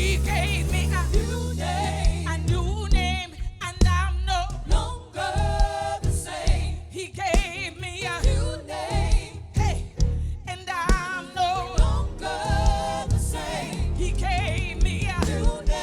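Gospel song performed live: sung vocals with a wavering vibrato, joined by backing singers, over a band with a steady beat.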